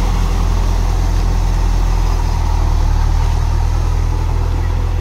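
Farm tractor's diesel engine running steadily while it drives a rotary tiller through wet paddy mud.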